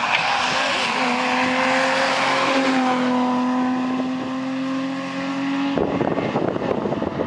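BMW E30 rally car passing at speed on a wet stage, its engine holding a steady high note, with a hiss of spray from the tyres in standing water. Near the end the engine note stops abruptly and a dense crackling noise takes over.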